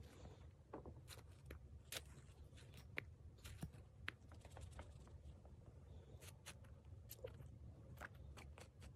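Near silence: a low steady hum with faint, scattered short clicks and crackles.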